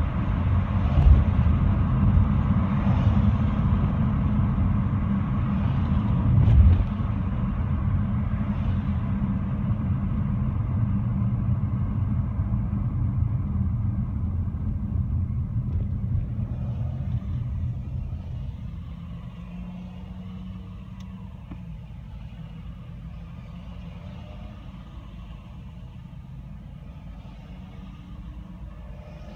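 Car driving, heard from inside the cabin: a steady low rumble of engine and road noise, with a couple of thumps in the first seven seconds. About two-thirds of the way through the rumble grows much quieter and stays low.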